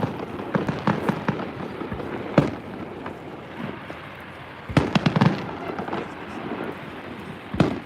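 Fireworks going off: sharp bangs and crackling reports, with a single loud bang about two and a half seconds in, a quick cluster of bangs around five seconds, and another bang near the end.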